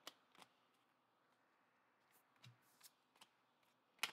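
AFLW TeamCoach trading cards being flicked through in the hand: a few faint, scattered clicks of card against card, the sharpest near the end.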